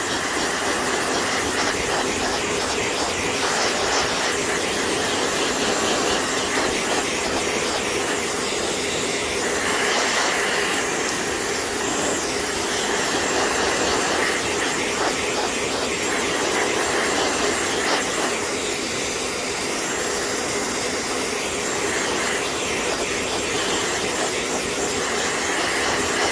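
Handheld hair dryer running steadily, blowing a loud even rush of air to dry a freshly brushed-on water-based finishing coat.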